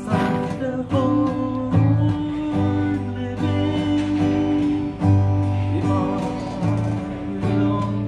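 Background music with guitar.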